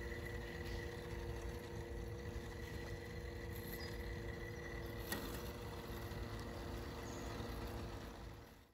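Husqvarna Automower 435X AWD robot lawn mower running across grass: a steady high electric whine from its motors over a low rumble, with a single click about five seconds in.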